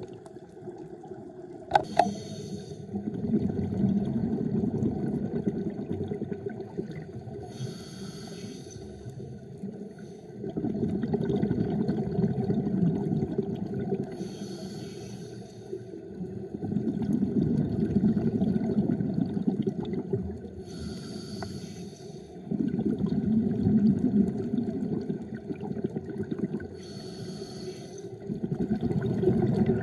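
Scuba diver breathing through a regulator underwater: each breath is a short hiss on the inhale, then a long bubbling rumble of exhaled air, about every six seconds, five breaths in all. A sharp click comes about two seconds in.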